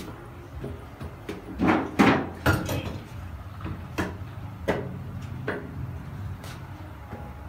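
A series of sharp knocks and bangs, the loudest about two seconds in, over a steady low hum.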